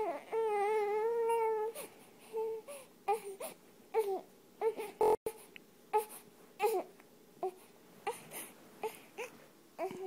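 Newborn baby crying: one long wavering wail at the start, then a string of short sobbing cries and whimpers about once a second. A brief burst of noise about halfway through.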